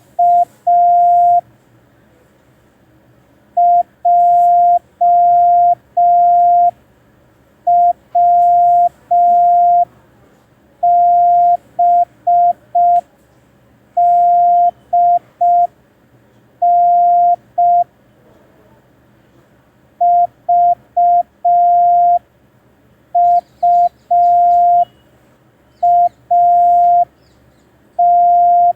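Morse code practice tone, a single steady pitch keyed on and off in dots and dashes. It is sent as five-letter practice groups with pauses of about a second between the groups.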